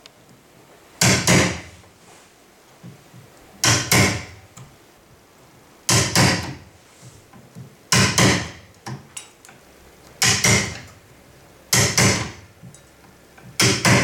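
Hammer driving a wood chisel into a timber door frame, cutting out the rebate for a latch strike plate: seven sharp blows about two seconds apart.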